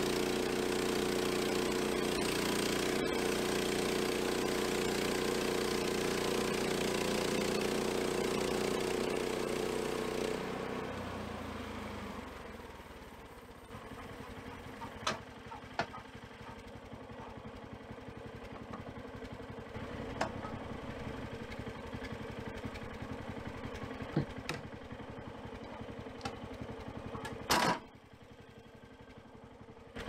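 Bandsaw sawmill's gas engine running steadily, then dying down about ten seconds in. After that it is much quieter, with scattered sharp metal clicks and knocks from working the sawmill's log clamps, and one louder clunk near the end.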